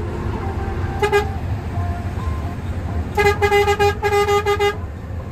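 Bus horn honked repeatedly at a slower bus ahead to make it give way: one short blast about a second in, then a quick string of short toots for about a second and a half. Underneath is the steady low rumble of the front-engined Hino AK bus, heard from inside the cabin.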